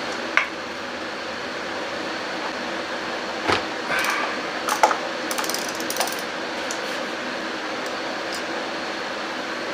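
Hand work in a car's engine bay at the number three spark plug and ignition coil: scattered sharp clicks and small knocks of tools and parts, with a quick run of clicks about five seconds in, over a steady background hum.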